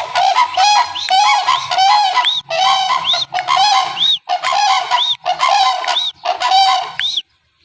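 Sarus cranes calling: loud trumpeting calls, about nine in a row, roughly one a second, ending shortly before the end.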